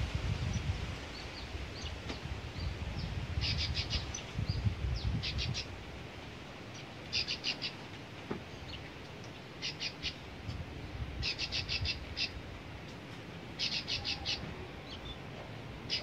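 Cisticola (cici padi) calling: quick clusters of four or five sharp, high chip notes, repeated every second or two from about three seconds in. A low rumble sits under the first six seconds.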